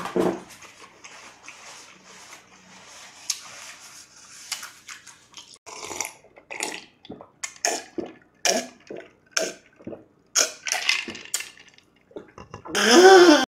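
Mouth sounds of eating and drinking: faint crunchy chewing of fried chicken, then a run of gulps about a second apart as he drinks iced cola. Near the end comes a loud voiced sigh, an "ahh" after the drink.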